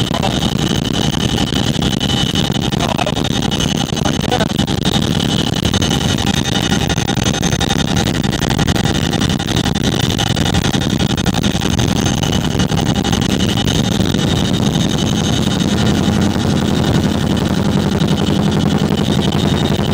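Tandem-rotor CH-47 Chinook helicopter in flight, heard from inside the cabin: very loud, steady noise with a high whine over a deep drone.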